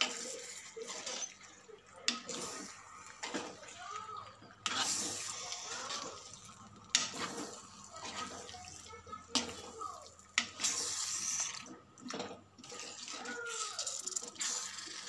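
Chicken pieces in a thick masala marinade being stirred with a spoon in a bowl: wet squelching and scraping in irregular bursts.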